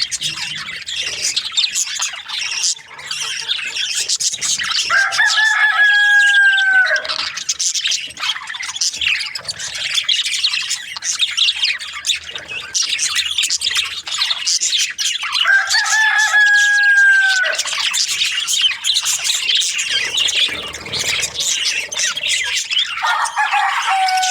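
A flock of budgerigars chirping and chattering without a break, with a rooster crowing twice, about ten seconds apart, each crow about two seconds long.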